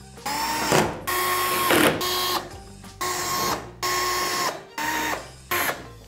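Electric screwdriver driving the screws back into a tumble dryer's casing in about seven short bursts, its motor whine dropping in pitch as each burst ends.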